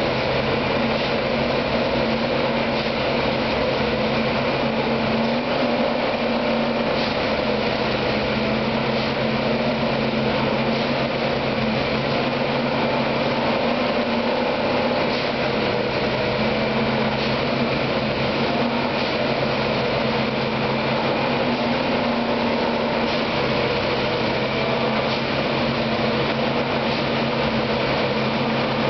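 Plasser & Theurer railway track maintenance machine's engine running steadily, a constant mechanical drone with a low hum and faint clatters every second or two.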